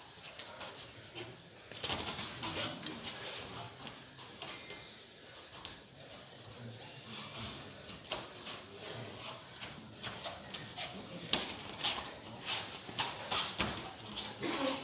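Irregular slaps and scuffs from two grapplers hand-fighting and clinching on foam mats, with bare feet shuffling and skin slapping against skin. The slaps come busier from about two seconds in and thicken in the second half.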